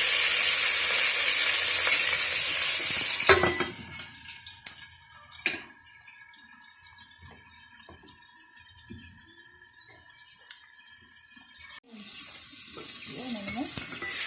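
Chicken frying with a loud, steady sizzle in a pot before water goes in for the broth. The sizzle cuts off abruptly about three seconds in, leaving a quiet stretch with a few sharp clicks. A softer sizzle starts again suddenly near the end.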